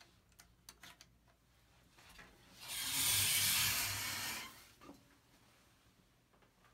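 A rushing hiss of rubbing that lasts about two seconds, starting near the middle, with a few faint clicks before it.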